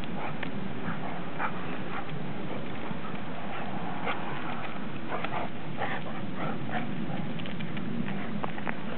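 A Standard Poodle and a Newfoundland playing together: scuffling and many short clicks, with a few brief dog noises, over a steady background hiss.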